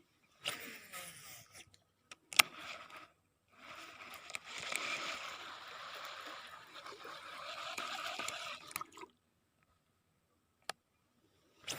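Baitcasting reel (Shimano Curado 201XG) being cast and wound in. On the cast the spool spins with a falling pitch, and a sharp click follows. After that comes several seconds of steady whirring as the line is retrieved.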